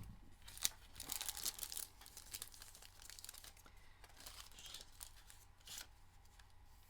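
Faint rustling and crinkling of plastic packets and sheets of craft embellishments being handled, with a few small clicks, busiest in the first couple of seconds.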